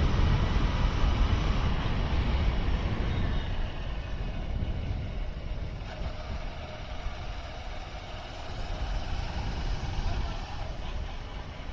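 A vehicle travelling along a road: a steady, noisy rumble of engine and road, loudest in the first few seconds and easing off through the first half.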